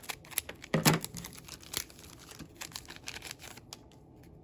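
Foil booster pack wrapper being cut open with scissors and crinkling, a run of quick sharp snips and rustles that thin out after about two seconds. A short hum of voice about a second in.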